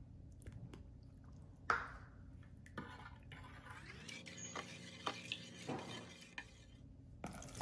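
Metal spoon stirring baking soda into water in a plastic bowl, with light clicks and scrapes against the bowl. A single sharp tap just under two seconds in is the loudest sound.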